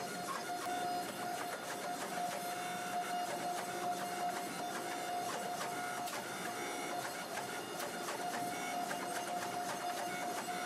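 Hydraulic forging press running, its pump giving a steady whine with faint ticks and crackles, as the dies squeeze a hot Damascus billet.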